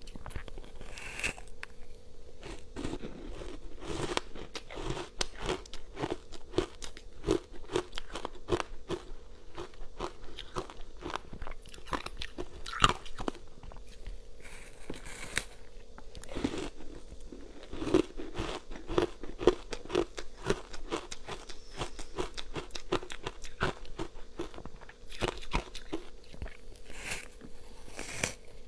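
Matcha-powdered ice block being bitten and chewed close to the microphone: a dense run of crunches and crumbly chewing, with a faint steady hum underneath.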